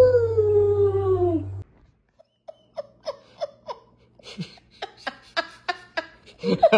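A domestic cat's long meow, falling in pitch, which ends about a second and a half in. After a pause comes a person's stifled, breathy laughter in short puffs, about three a second, louder near the end.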